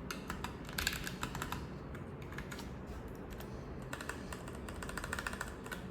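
Typing on a Keychron K3 Pro low-profile mechanical keyboard with Gateron Brown switches: quick runs of light keystroke clicks, pausing briefly about halfway through.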